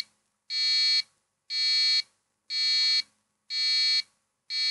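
Arduino-driven buzzer beeping a 255 Hz test note: half-second beeps, once a second, about five in all. A buzzy, high-sounding tone showing the buzzer circuit works.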